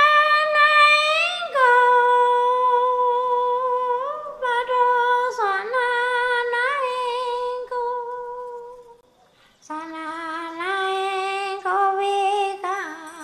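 A single high voice singing long, drawn-out notes without accompaniment, the pitch wavering and gliding between notes. It breaks off briefly about nine seconds in, then goes on at a lower pitch.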